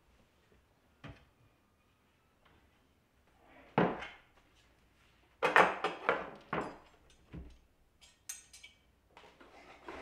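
A string of separate knocks, clicks and clatters from handling household things: a cupboard door being opened, then plastic and wire organizer parts being lifted from a box and set down on a wooden table.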